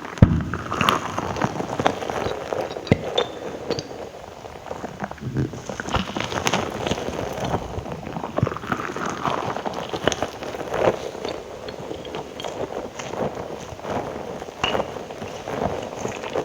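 Wet mouth sounds: irregular clicks and smacks.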